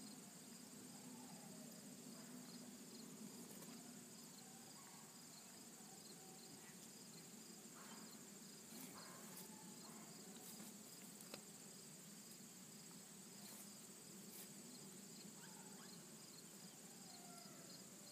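Faint, steady high-pitched insect chorus, the even shrill of many insects calling together, with a fainter pulsing trill beneath it.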